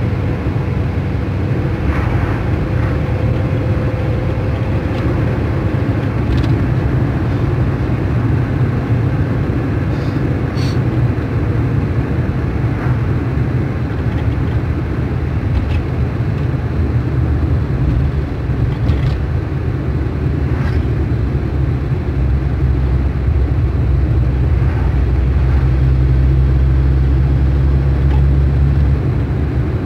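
Steady road and engine noise from a moving car, heard from inside the cabin: a continuous low rumble that grows louder and deeper for the last several seconds.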